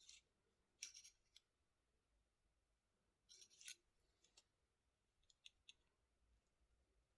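Böker Plus Kaizen folding pocket knife being handled: a few faint, short metallic clicks and sliding snicks of the blade and lock, in small clusters near the start, around the middle, and a couple more later.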